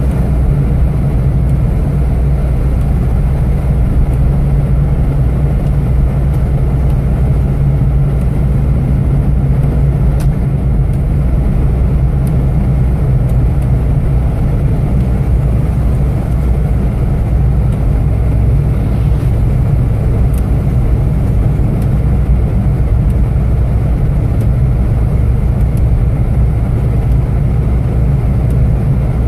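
Steady cabin drone of a Fiat Punto driving along a slushy, snowy road: a low, even engine hum under tyre and road noise, heard from inside the car.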